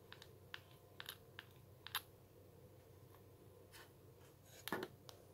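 Faint, irregular clicks and taps of a 3D-printed plastic eyelid assembly being handled and moved on its pivots, with a couple of louder clicks about two seconds in and near the end.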